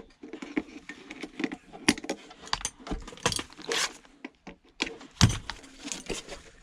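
Tools and small metal parts clinking and knocking in irregular sharp clicks as an electronic unit is taken apart by hand.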